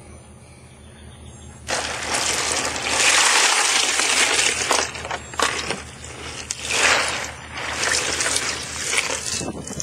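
Water splashing and sloshing. It starts suddenly about two seconds in and comes in irregular surges.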